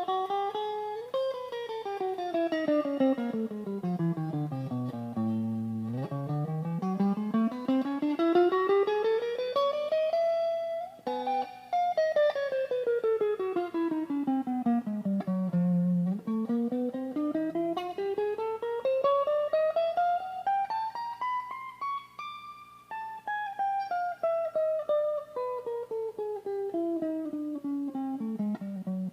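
Washburn MG-300 electric guitar played alone, picking fast single-note scale runs that sweep up the neck and back down again. Each run takes about five or six seconds. The lowest turns come at about five and sixteen seconds in, and the runs settle onto a low note at the end.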